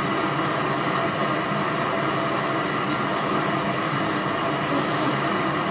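Bathtub tap running steadily, water pouring into the tub as it fills for a bubble bath.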